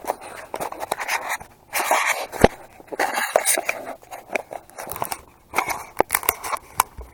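Handling noise on an action camera sealed in its waterproof case: irregular scraping and rubbing with scattered sharp clicks.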